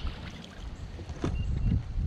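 Wind buffeting the microphone and water sloshing around a fishing kayak, with a couple of sharp knocks a little over a second in.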